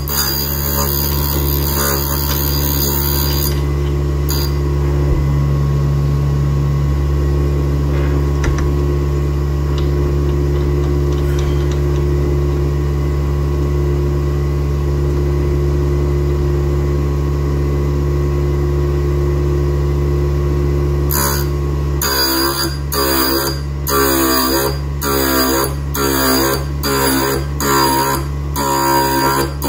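D-bit grinder's motor running with a steady hum while its wheel grinds the side of a round tool-steel thread-cutting tool. There is a hiss of grinding at the start. In the last eight seconds the tool is fed against the wheel in short, repeated passes, about one every 0.7 s.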